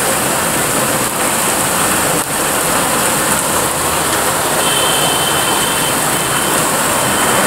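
Heavy rain falling steadily, with a stream of runoff water pouring off the roof above and splashing onto corrugated roof sheeting below.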